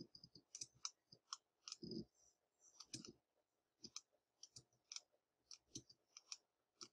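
Faint, irregular clicks of a computer mouse and keyboard keys, a couple a second, as nodes are selected and deleted in a drawing program.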